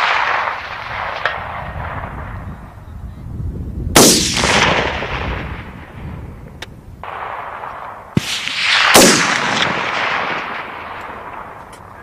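Rifle shots, each loud report trailing off in a long rolling echo. One comes about four seconds in, then a sharp crack just after eight seconds is followed a second later by another heavy report.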